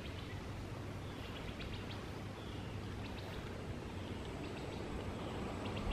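Quiet outdoor background: a steady low rumble and hiss with faint, scattered high chirps.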